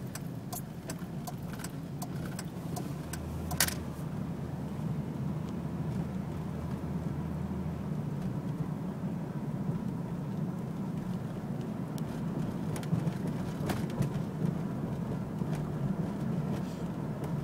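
Steady road and engine rumble heard from inside a moving car's cabin. A deeper hum joins for a few seconds, from about three to eight seconds in. Scattered light clicks are heard, with one sharper click a little over three seconds in.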